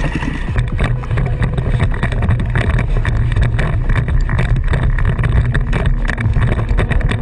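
Dirt bike engine running hard under the rider, heard from a helmet camera, with wind buffeting the microphone.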